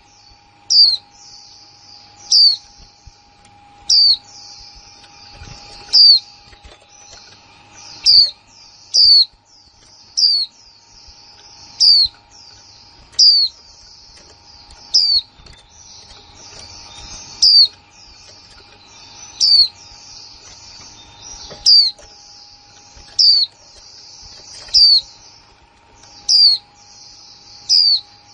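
Female white-eye (chim vành khuyên) calling, the kind of 'kick' call played to rouse male white-eyes into song: a sharp, high call note about every one to two seconds over continuous soft twittering.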